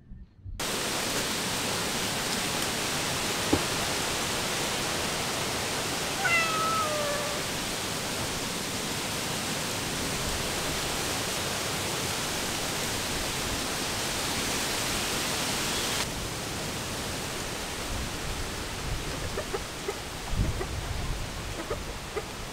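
Steady hiss of heavy rain, with a cat meowing once, a single falling call, about six seconds in.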